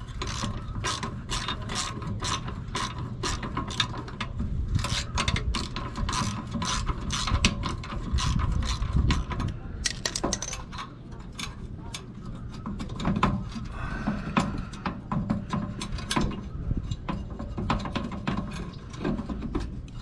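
Hand ratchet wrench clicking in quick runs of strokes, backing out the mounting bolts of an RV's rear stabilizer jack.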